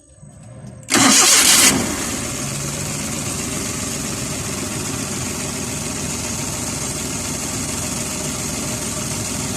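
Suzuki Scrum multicab engine starting on the first turn of the key: a short, loud burst as it cranks and catches about a second in, then a steady idle. A new distributor cap has just been fitted to cure its hard starting.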